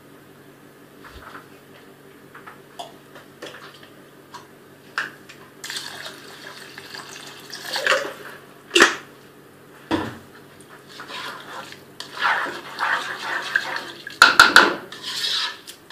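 Water being poured into a pot of soaked rice, in two pourings, with sharp clinks and knocks of the pot and utensils between them. A faint steady low hum runs under the first part and stops about ten seconds in.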